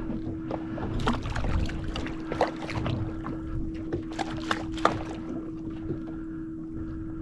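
Sounds of a boat on the water: a steady hum over a low rumble, with scattered sharp clicks and knocks.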